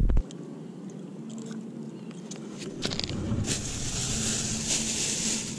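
Beach ambience: a steady rushing hiss that grows louder about three and a half seconds in, with scattered small clicks and knocks of gear handled close to the microphone and a faint low hum underneath.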